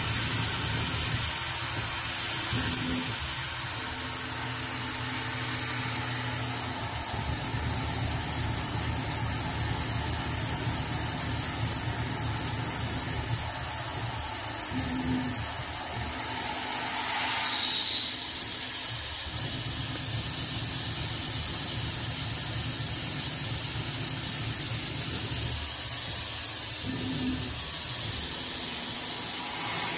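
CNC-converted Grizzly G0704 milling machine, driven by a belt-driven 2.2 kW water-cooled spindle, cutting metal stock with an end mill. The noise is steady with a constant high hiss, and low hums drop out and come back every few seconds as the cut moves along.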